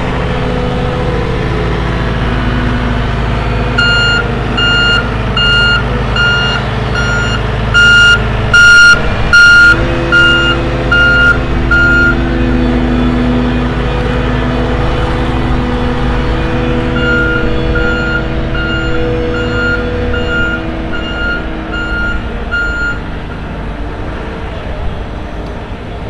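XCMG XC7-SV12 skid steer loader's diesel engine running as it manoeuvres, its backup alarm beeping about one and a half times a second in two spells while it reverses. About eight to ten seconds in there are three short, loud rushes of noise.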